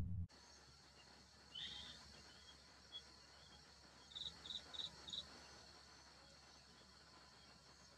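Music cuts off just after the start, leaving faint outdoor ambience: a steady high insect drone with a few short, high bird chirps, four of them in quick succession about four to five seconds in.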